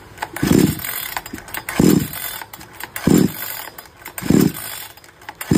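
Two-stroke 58cc chainsaw being cranked with its recoil starter on choke: five quick pulls about a second and a quarter apart, the cord whirring and the engine turning over without firing. It does not catch even with petrol poured into the cylinder, because its piston is scored and its rings are seized.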